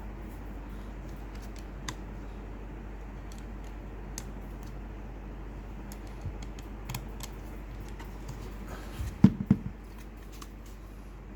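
Small scattered clicks of a Phillips screwdriver and fingers working screws out of a plastic speaker housing, with a few louder knocks about nine seconds in, over a steady low hum.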